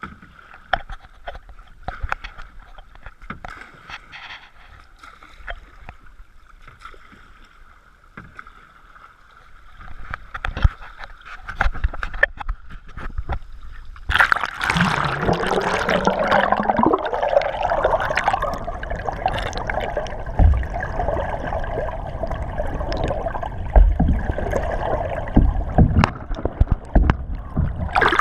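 Canoe on the water: paddle and water sounds with scattered clicks and knocks. About halfway through, a much louder rushing noise sets in suddenly and keeps up.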